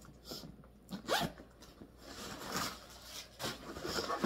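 Zipper on a vintage Dooney & Bourke leather-and-canvas satchel being pulled open in several short rasps, with the canvas rustling as the bag is handled and tipped open.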